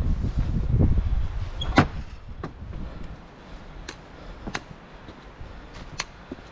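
Footsteps on a gravel woodland track: a few sharp, scattered crunches and clicks, with wind rumbling on the camera microphone for the first second or so.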